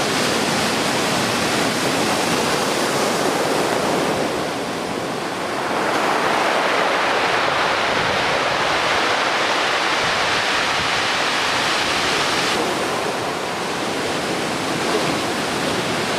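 Heavy typhoon surf breaking on the beach: a loud, continuous rushing roar of big close-out waves. It eases about four seconds in and again near the end, then swells back as the next wave breaks.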